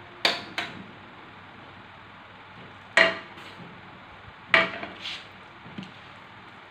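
A few sharp clicks and knocks: the knob of a portable butane gas stove clicked to light the burner, the loudest click about three seconds in, then a frying pan set down on the burner grate.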